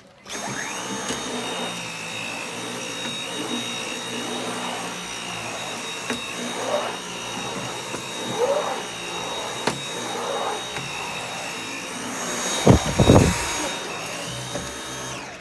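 Dyson V8 cordless vacuum cleaner switched on and running steadily with a high whine, then switched off just before the end. Near the end a loud low rumble lasts about a second.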